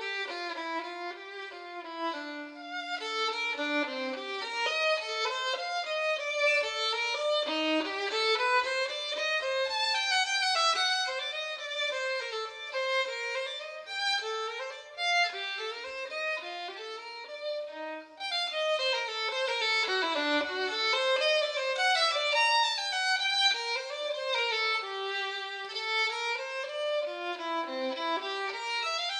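Background music played on a violin: a continuous melody of quick notes moving up and down.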